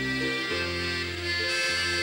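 Dance band playing an old-time dance tune for couples dancing, with sustained melody notes over a bass line stepping from note to note about twice a second.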